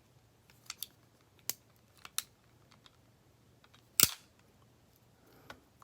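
A few small, sharp clicks and taps of tools handling a smartphone's parts during a teardown, the loudest about four seconds in.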